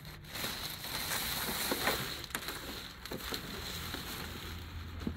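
Fabric snowmobile cover rustling and crinkling as it is dragged up and off the sled, loudest in the first couple of seconds.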